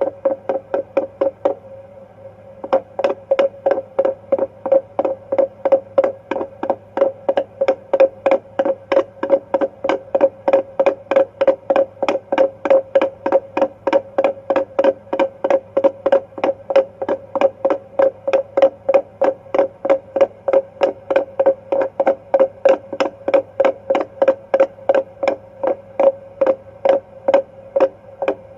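Handheld fetal Doppler monitor's speaker giving a fast, regular pulsing whoosh of a pulse or heartbeat, roughly two to three beats a second, over a steady hum. The beat drops out for about a second near the start, then comes back.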